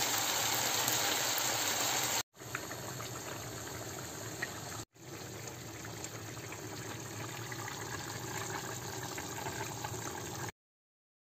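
Steady hissing of khichuri cooking in a pan on the stove, with faint small crackles. It breaks off twice, is quieter after the first break, and stops suddenly near the end.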